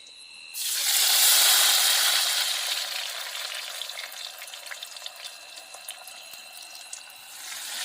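Raw jackfruit pieces frying in hot oil: a loud sizzle starts suddenly about half a second in, slowly dies down, and swells again near the end. Crickets chirp steadily underneath.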